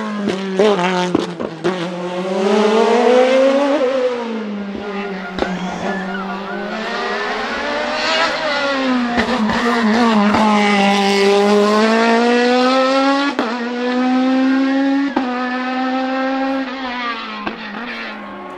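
Hillclimb racing prototype's engine under full throttle, revving up through the gears. The pitch climbs and then drops sharply at each upshift, with sharp cracks on the gear changes, loudest as the car passes close.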